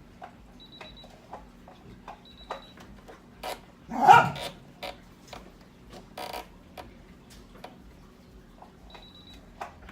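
Computerised sewing machine giving short high electronic beeps, three in all, among small clicks of its buttons and mechanism, while it shows an error code. One loud short vocal sound about four seconds in.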